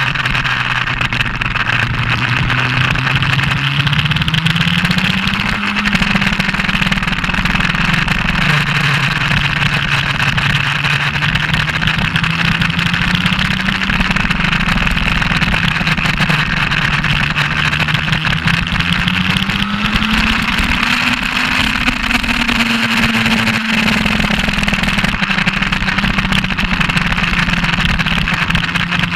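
Onboard sound of a Suzuki GS1200SS's inline-four engine under way on track, its pitch climbing slowly and easing back a few times, under a loud steady rush of wind over the bike.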